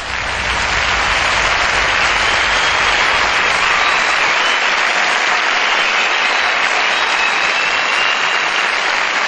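Large theatre audience applauding, swelling over the first second into steady, dense clapping.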